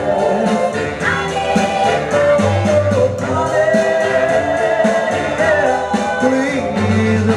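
Loud dance music with a steady beat and a singing voice, played over a party sound system.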